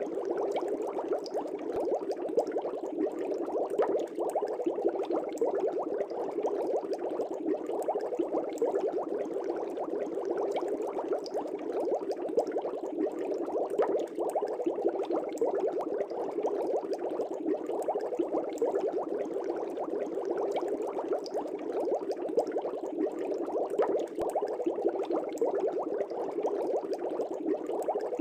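Aquarium water bubbling: a steady, dense stream of air bubbles with many small pops and gurgles.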